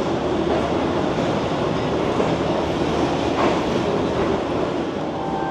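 Sir Syed Express passenger train running along the track, a steady noise of the moving train with a faint click about three and a half seconds in.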